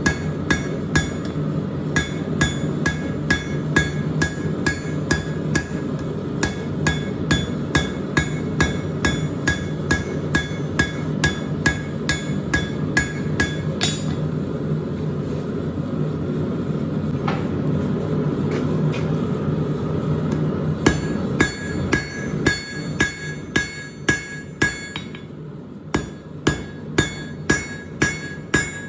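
Hand hammer striking a bar of 1/2-inch square steel on an anvil, about three blows a second, each with a bright metallic ring. The blows pause for several seconds about halfway through, with only a few scattered strikes, then start again. A steady low hum runs underneath.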